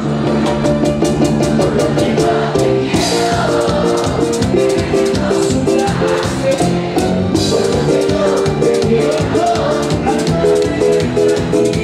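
Live band playing upbeat Latin dance music: a fast, steady shaker-and-drum beat under sustained keyboard-like chords.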